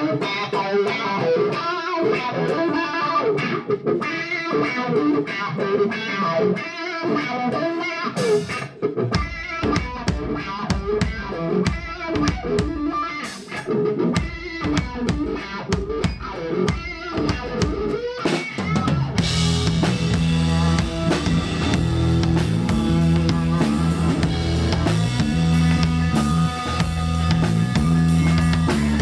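A live band jamming: electric guitar riffing over a drum kit. A deeper low end joins about nine seconds in, and around nineteen seconds the playing swells into a fuller, denser band sound.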